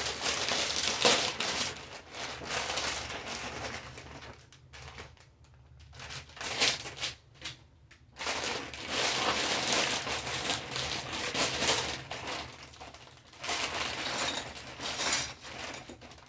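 Plastic bags of Lego Technic parts being handled, opened and crinkled, with the loose plastic pieces rattling as they are tipped out onto a table, in several bouts with short pauses between them.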